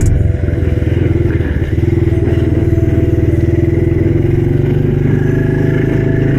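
Honda CRF110 dirt bike's small single-cylinder four-stroke engine running steadily while being ridden, with a brief drop in loudness about half a second in.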